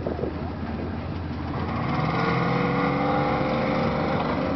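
A car engine with a leaking exhaust accelerating. Its pitch climbs and it grows louder from about two seconds in.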